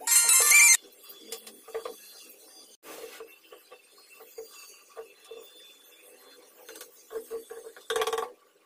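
Metal tongs scraping and clinking through packed sand as a freshly cast aluminium cleaver handle is dug out of its sand mould. A loud metallic scrape opens it, faint gritty scrapes and ticks follow, and a second ringing metal scrape comes near the end as the tongs grip the cast handle.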